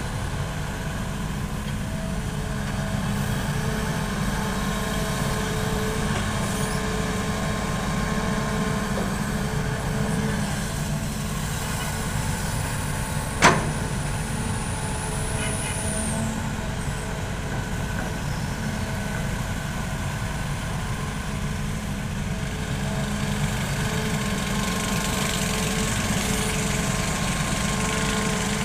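Hitachi hydraulic excavator's diesel engine running steadily as the machine digs and loads. About halfway through there is a single sharp knock, followed by a faint high whistle for about three seconds.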